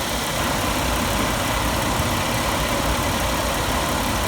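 Chevy Astro van's 4.3-litre V6 idling steadily with its new ignition coil soaked in water, running without misfires: the replaced coil, cap, rotor, plugs and wires have cured the wet-weather misfire.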